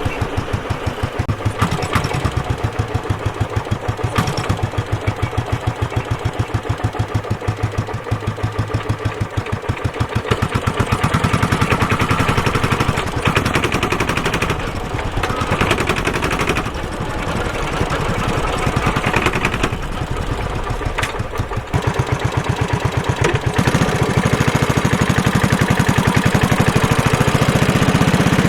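Suzuki Savage 650's big single-cylinder engine lugging at low revs in a high gear, each firing stroke heard as a distinct thump as the bike snatches and jerks. The pulses quicken and grow louder several times as it pulls.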